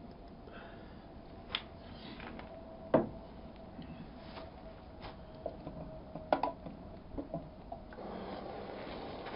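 Clinks and knocks of a metal mess tin and spoon being handled and stirred on a gas camping stove, the loudest knock about three seconds in and a cluster of smaller ones later. A steady background noise runs underneath and grows louder near the end.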